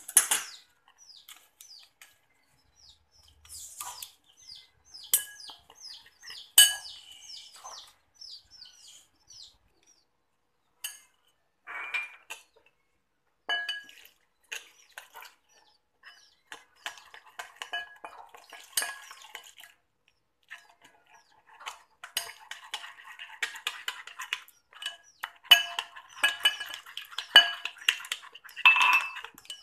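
Metal spoon stirring and scraping in a glass bowl, clinking against the glass, as curry, turmeric and chili powders are mixed with water into a paste. The clinks are scattered at first and become a quick, continuous run of stirring in the last several seconds.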